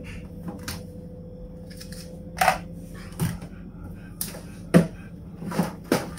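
Objects clacking and knocking as they are handled and set down while a drawer is being tidied: about half a dozen sharp clacks over a few seconds, the loudest about three-quarters of the way through.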